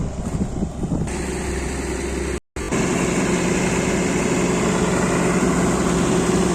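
Combine harvester engine running steadily, growing louder about a second in. The sound cuts out for a split second about two and a half seconds in, then comes back louder.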